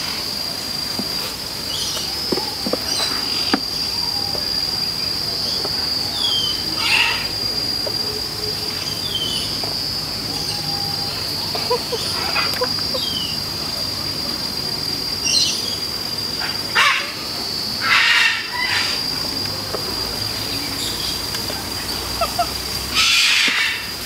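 Steady high-pitched insect drone, with a few short falling bird chirps and several brief noisy bursts, the loudest about two-thirds of the way in and near the end.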